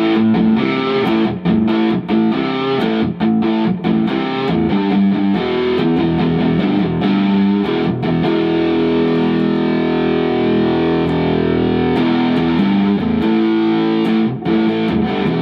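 Electric guitar (a Fender Telecaster) played through an overdriven amp, chords and single notes on the bridge pickup with a nice twangy tone. Near the end a brief drop as the 4-way switch moves to the series-wiring position, after which the tone is thicker and fatter.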